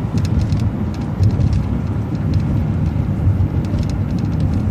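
City bus driving along the road, heard from on board: a steady low engine and road rumble, with scattered small clicks and rattles.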